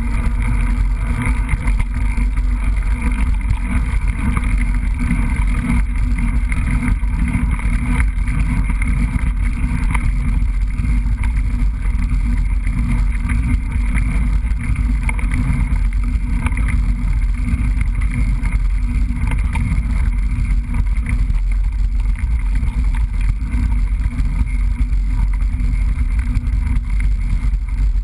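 Mountain bike being ridden along a trail: a steady low rumble of riding and wind noise with frequent small knocks and rattles from the bumps.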